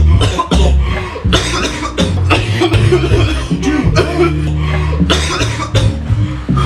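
Several people coughing hard and repeatedly, deliberately, over background music with a steady bass line.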